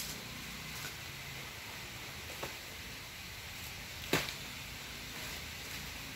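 A few sharp knocks over a steady background hiss, the loudest about four seconds in.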